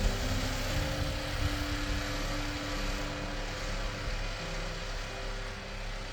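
Snowmobile engine running steadily, its pitch shifting a little as it holds and changes speed.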